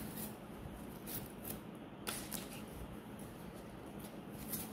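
Plastic milk sachets being handled and set down one by one on a countertop, a few short crinkles and soft taps.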